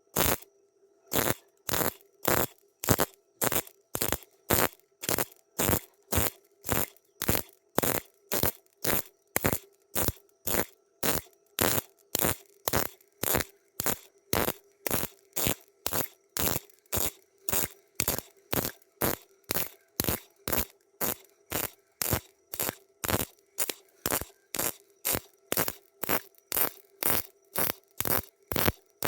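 MIG welder fired in short, evenly spaced crackling bursts, about one and a half a second, each lasting a fraction of a second: the stitch or pulse technique of building up weld to bridge a wide gap in iron. A faint steady hum from the welding machine runs underneath.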